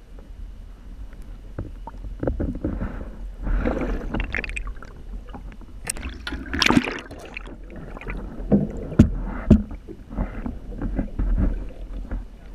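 Sea water sloshing and splashing around a GoPro Hero 4 in its waterproof housing as it dips in and out of the water at a boat's hull, with irregular surges and several sharp knocks.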